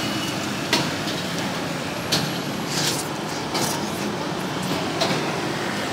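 Steady street background noise with traffic running, broken by about five short sharp clicks spread through the stretch.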